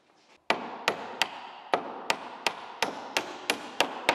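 Hammer driving nails into rough wooden planks: a quick, even series of about eleven blows, roughly three a second, each ringing briefly.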